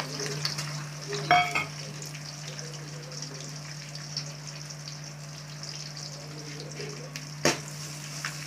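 Garlic cloves sizzling steadily in hot oil in an aluminium kadai. There is a brief metal clatter about a second in, and near the end a sharp knock of the spatula on the pan as stirring begins.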